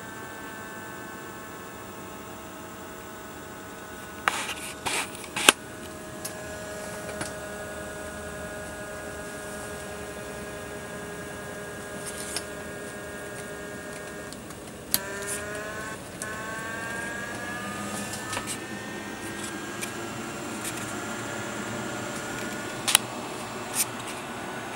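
12-volt electric fan running with a steady motor whine. Its pitch shifts as the speed control is adjusted, gliding up about fifteen seconds in and holding there. A few sharp clicks and knocks of handling come near the start, in the middle and near the end.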